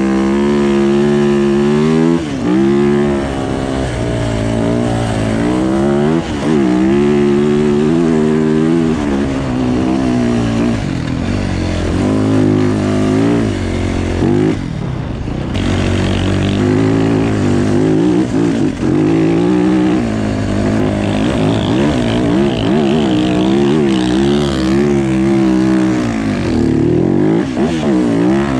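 Off-road vehicle engine revving hard under riding, its pitch climbing and dropping again and again every second or two.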